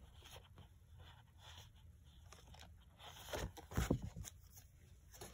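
Paper sheets and a clear plastic sleeve being shuffled and handled: mostly quiet, with a short burst of rustling and bumps about three seconds in.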